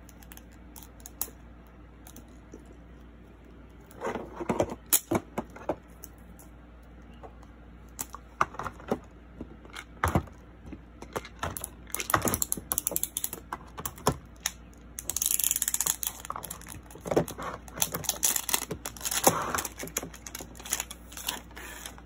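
Small plastic toy capsule being handled and pried at by a child's hands: scattered plastic clicks and taps, starting a few seconds in and growing busier, with a stretch of scraping rustle past the middle.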